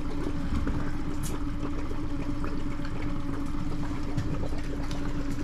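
Steady motor hum with water running and splashing, on a boat trolling on open water.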